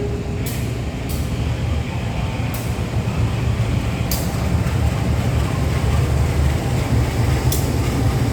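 CC 201 diesel-electric locomotive running with a steady low engine rumble, a few sharp clicks scattered through it. The last of a horn note fades out right at the start.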